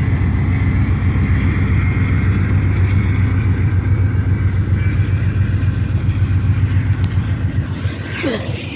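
Passenger train passing: the diesel locomotive and its coaches rolling by with a steady, loud rumble that fades near the end.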